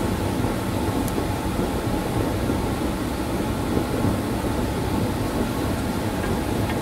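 Steady low rumbling background noise with a faint steady hum under it, and one faint tick about a second in.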